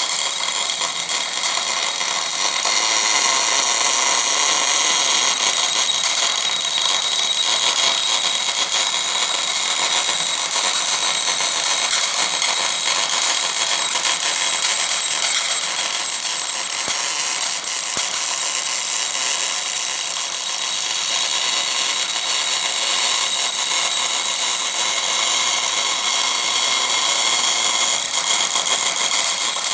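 Steady hiss and crackle of a MIG wire-welding arc running continuously as an orbital welder lays a bead on cast iron.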